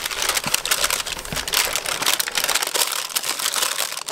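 A large paper cooking liner for a cast-iron Dutch oven crinkling and rustling as it is pressed and smoothed into the pot by hand, in quick irregular crackles.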